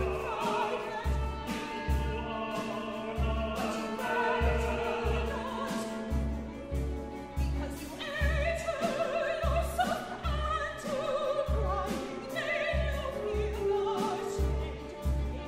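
Solo operatic singing in contemporary chamber opera, with a small live ensemble of strings, winds, keyboard and percussion accompanying. A low beat recurs roughly once a second under the voice.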